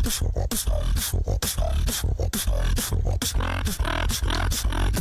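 Riddim-style (dubstep) beatbox into a microphone: a heavy, nearly continuous deep inward bass line under sharp snare-like clicks in a steady beat of about two to three hits a second.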